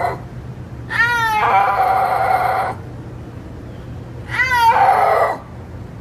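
Snow leopard calling: two long mewing calls, the first about a second in and the second, shorter, near the middle, each opening with a quick downward sweep in pitch and then holding a steady tone.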